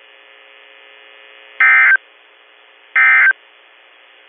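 Emergency Alert System SAME data bursts: two short, loud, buzzy high-pitched data bursts about a second and a half apart, with a third starting at the very end, over faint steady radio hiss. These are the end-of-message code that closes a weather-radio severe thunderstorm warning.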